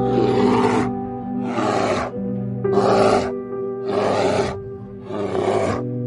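Five rough animal roars or growls, about one a second, over sustained background music.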